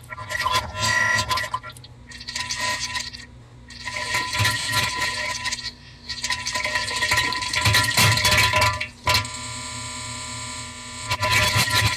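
Bass-boosted, time-stretched diarrhea sound effects: irregular bursts of crackling, clicky noise with short gaps between them. From about nine to eleven seconds in, a smeared, droning stretch of the sound is held steady.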